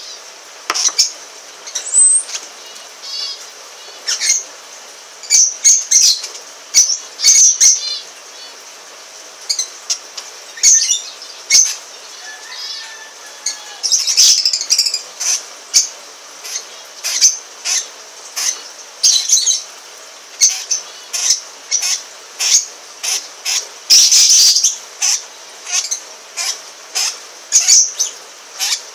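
Lovebirds calling: short, sharp, high-pitched shrieks, repeated irregularly about once or twice a second, with a few softer chirps in between.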